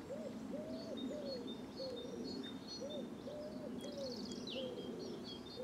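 Birds calling: a dove cooing in short, low, arched notes repeated about every half second, while small songbirds chirp and trill thinly high above. A faint steady hum runs underneath.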